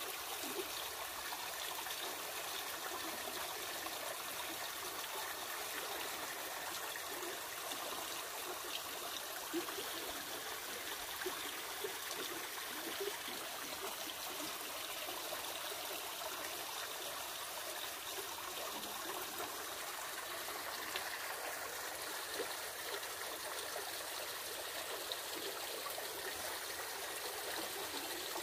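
Fast-flowing river water running over a shallow bed: a steady, even rushing with small splashes now and then.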